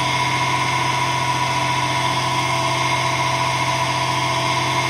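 Electric motor running steadily at full speed, spinning a wooden disc set with magnets inside a copper pipe coil: an even hum with a whirr of air from the disc. The motor is working against the eddy-current drag of the coil, drawing about 710 watts.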